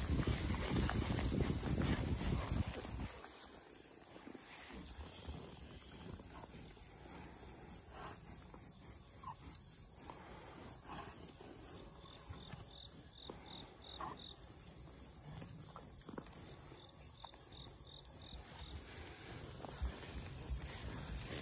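Insects chirping steadily in a grassy field, with a few faint, quicker chirp runs in the middle. Louder rustling and footsteps through tall grass for the first three seconds and again near the end.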